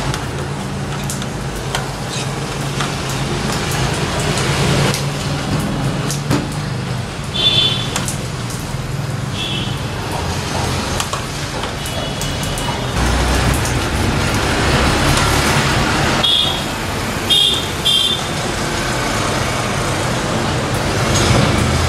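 Steady road-traffic noise with a low hum, and about half a dozen short high beeps scattered through it.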